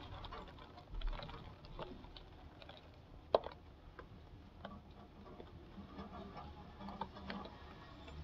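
Rain with irregular raindrops ticking close by, one sharper tick about three seconds in.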